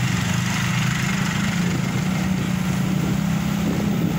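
Motorcycle engine running at a steady cruising speed, heard from the rider's own bike, with wind and road noise over it.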